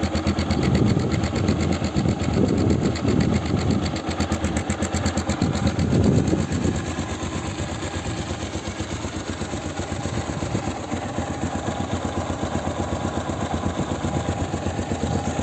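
1979 Honda XL 500 S's air-cooled single-cylinder four-stroke engine running, with a few louder throttle surges over the first six seconds or so, then settling into a steady idle.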